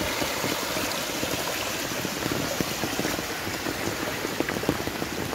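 Floodwater running across a road: a steady rush of water with many small splashes and patters.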